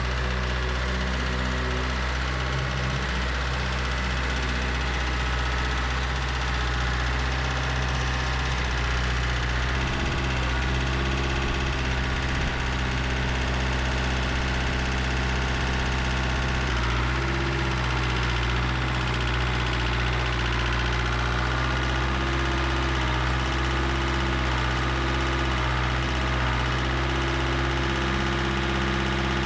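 Tractor engine running steadily, its pitch shifting slightly about a third and again about halfway through.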